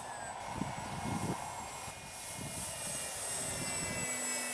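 A Parkzone F4U-1A Corsair RC plane's electric motor and propeller whining steadily as it flies overhead. The rush of air grows louder in the second half as the plane comes close. Wind gusts buffet the microphone.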